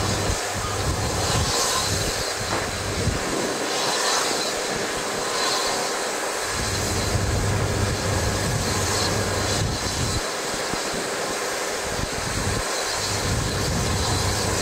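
Steam locomotive Taw Valley, a Bulleid West Country class Pacific, with a steady hiss of steam and slow, uneven surges a second or more apart.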